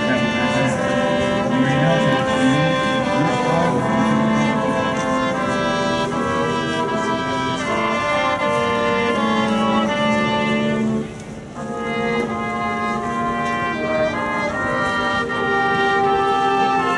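High school marching band playing sustained brass chords, with a brief drop-off about eleven seconds in before the band comes back in.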